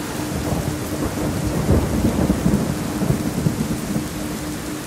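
Steady rain with rumbling thunder, the rumble strongest about two seconds in. Underneath runs a faint low tone pulsing about four times a second, a 4 Hz theta pulse.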